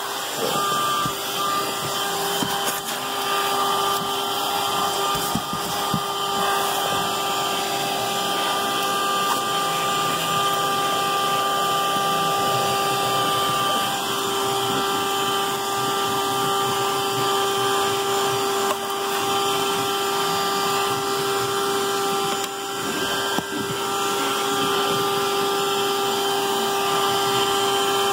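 Vacuum cleaner running steadily with a high motor whine, its hose nozzle sucking over car floor carpet. The whine's pitch shifts slightly about halfway through.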